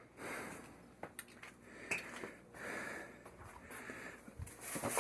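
Quiet handling noise as hose bib splitter fittings are picked up and worked: soft rustling, twice, and a few light clicks.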